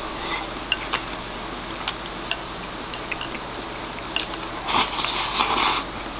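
A man eating oyakodon from a ceramic bowl with wooden chopsticks: chewing, with scattered sharp clicks of the chopsticks against the bowl, then a louder noisy sound about a second long near the end.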